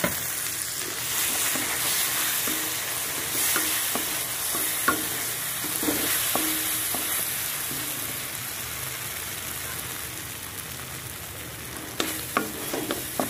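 Ground masala paste frying in hot oil in a metal kadai with onions and whole spices: a steady sizzle while a wooden spatula stirs and scrapes it against the pan. The scraping clicks come thicker near the end.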